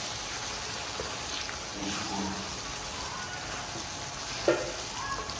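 Potato curry masala with yogurt sizzling in a karahi as it is stirred with a spatula, with a steady hiss throughout. One sharp knock of the spatula on the pan comes near the end.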